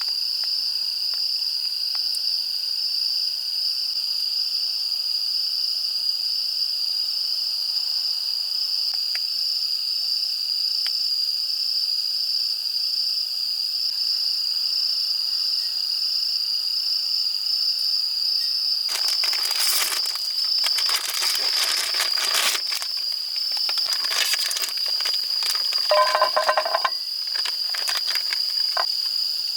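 Steady, high-pitched chorus of crickets trilling. Roughly two-thirds of the way in, several seconds of rustling and crinkling handling noise come in, with a brief squeak near the end of that stretch.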